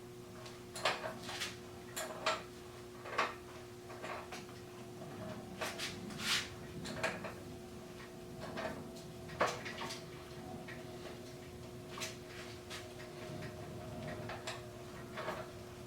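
Irregular metallic clinks and knocks of hand tools and metal parts being handled, a few sharp ones a second at times, over a steady low hum.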